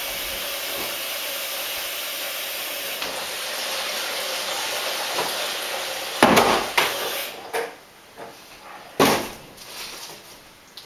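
Hot water tap running steadily into a sink, shutting off about three-quarters of the way in. Two loud clattering knocks of hard objects, like dishes or containers in the sink, come a little after halfway and again near the end.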